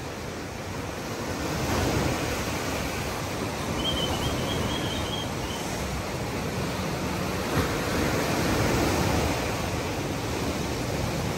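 Ocean surf: waves rolling in and breaking in a steady rush that swells and eases, fading in at the start. A brief faint high chirp about four seconds in.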